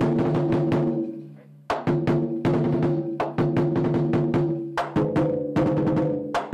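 Large Chinese lion dance drums struck with wooden sticks, playing quick rolls of strokes followed by single beats, each hit leaving the drumhead ringing with a low tone. The playing pauses briefly about a second and a half in, then picks up again in the same pattern of rolls and beats.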